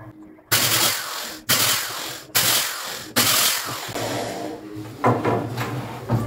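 Corded electric drill with a 6 mm bit boring through eucalyptus board in four short runs of about a second each, each starting suddenly. Near the end come a couple of wooden knocks as boards are handled.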